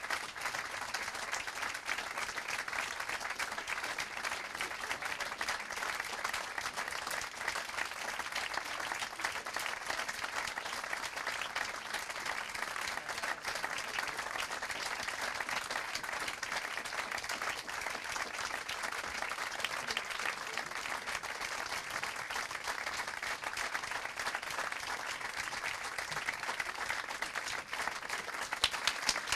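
Audience applauding steadily, a long run of many hands clapping, with a few sharper claps near the end.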